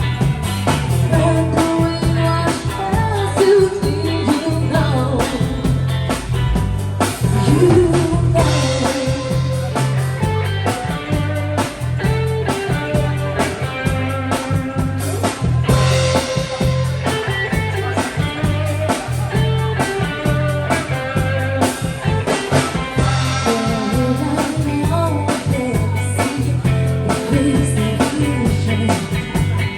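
Rock song playing: a singer over guitar, a repeating bass line and a drum kit keeping a steady beat.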